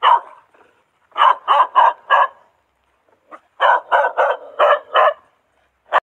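A dog barking: a single bark, then a quick run of four barks, then after a pause another quick run of about five.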